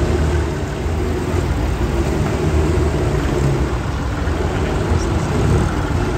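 Several vintage tractor engines running as tractors drive slowly past one after another, a steady low engine sound.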